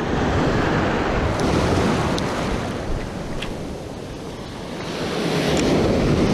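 Surf waves breaking and washing up the beach, with wind buffeting the microphone; the wash eases off in the middle and swells again with a new breaking wave about five seconds in.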